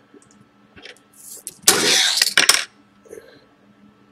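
Handling noise of objects being moved on a table: a few light clicks, then a loud rustling, scraping burst lasting about a second, with sharp clicks in it.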